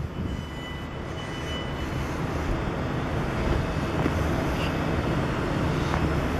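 South Western Railway Class 450 Desiro electric multiple unit, three units coupled as a 12-car train, pulling out of the station. A steady low rumble builds gradually louder, with a faint high whine in the first two seconds.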